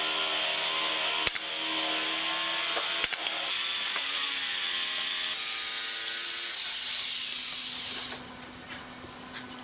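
Nail gun firing twice into a pine joint, two sharp shots about a second and a half apart, over a steady mechanical hum that fades near the end.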